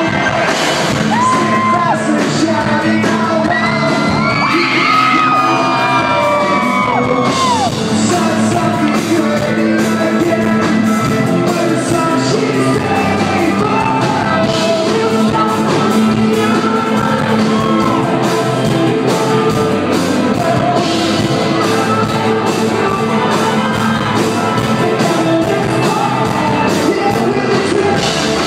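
Live electronic rock band playing loudly in a large hall: a woman singing over electric guitar, drums and keyboards, with some shouting.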